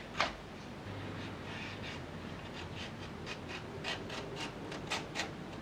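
A small knife cutting and scraping along the stiff midrib of a large anthurium leaf. It makes a run of short crisp crunches and scrapes, irregularly spaced, one just after the start and most of them in the second half.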